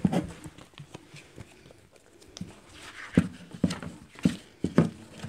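Handling noise from unpacking a cardboard carton: printed cards being handled and shuffled, with a faint rustle and a few light knocks against the box, four of them about half a second apart in the second half.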